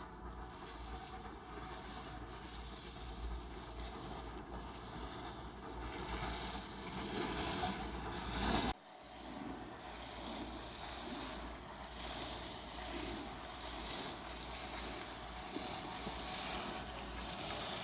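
Wind buffeting the microphone over a steady hiss of skis sliding on snow. The sound changes abruptly about nine seconds in: the low rumble drops away and the hiss swells and fades about once a second.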